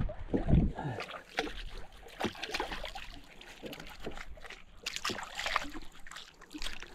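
Gloved hands splashing in seawater over the side of a small boat: a run of small, irregular splashes and trickles.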